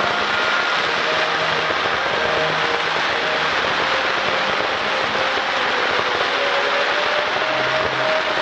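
Steady, continuous hiss of fountain fireworks (gerbs) burning on a frame set piece, with no bangs.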